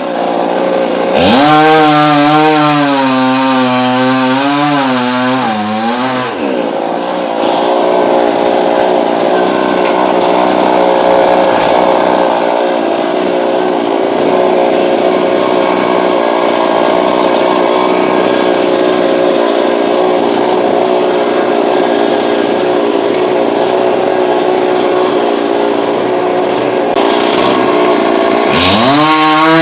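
Chainsaw revving up sharply about a second in and holding high, wavering revs. It then settles into a steadier, noisier, lower-pitched note under load while cutting coconut tree wood for about twenty seconds, and revs up again near the end.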